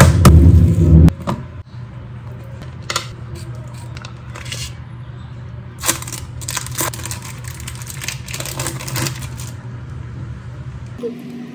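A metal meat tenderizer pounds chicken breast through plastic wrap on a wooden cutting board in quick strokes, stopping about a second in. After that, plastic wrappers crinkle and crackle as a cheese slice is unwrapped, over a steady low hum.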